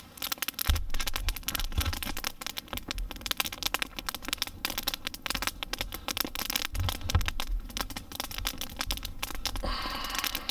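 Open campfire crackling with many small sharp pops, over a low rumble that comes in about a second in.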